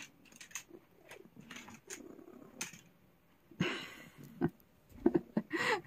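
Long-haired calico cat being stroked on a lap: soft rustling of fur and clothing, a swish a little after halfway, and a short meow near the end.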